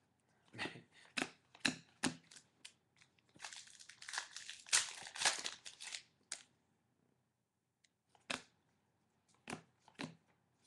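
A trading-card pack wrapper crinkling and tearing for about two and a half seconds from around three and a half seconds in. Before and after it come sharp clicks and taps of cards being handled and set down.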